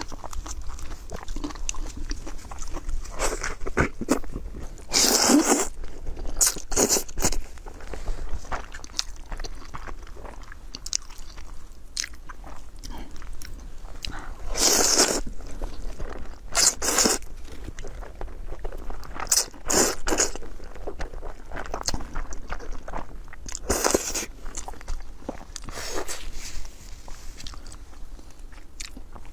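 A person eating close to the microphone, mukbang-style: crunchy bites and chewing, with a loud bite every few seconds and quieter chewing in between.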